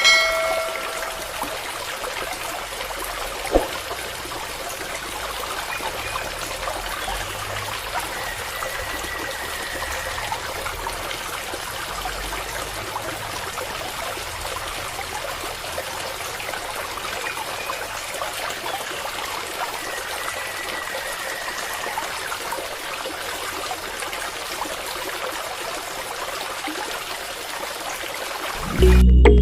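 Water running in a steady trickling stream. A single sharp click comes about three and a half seconds in.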